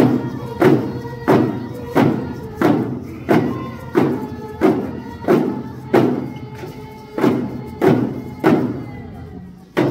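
Coast Salish hand drums beating a steady, even rhythm of about three beats every two seconds, accompanying a paddle dance song, with voices singing along. Near the end there is a short pause in the beat before one hard stroke.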